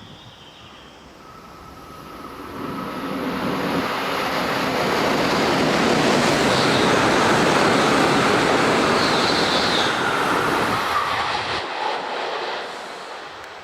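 Shinkansen bullet train passing through a station at speed without stopping: a rushing noise of wheels and air that builds over a few seconds, stays loud for about six seconds with a faint steady whine, then falls away near the end.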